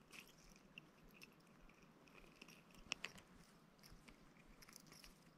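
Near silence, with faint scattered small clicks and one sharper click about three seconds in.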